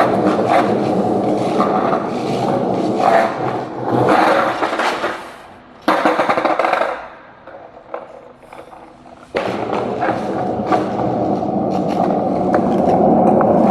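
Skateboard wheels rolling over wet pavement, with a sharp clack of the board about six seconds in. The rolling goes quiet for a couple of seconds, then starts again with another sharp knock and runs on.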